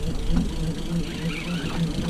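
Mercury outboard engine idling, a steady low beat pulsing about three times a second.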